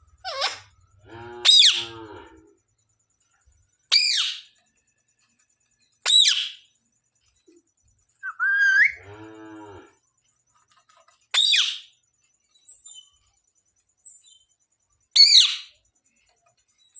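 Pet green parrot giving about seven short, shrill screeching calls a few seconds apart, two of them running into a lower raspy sound.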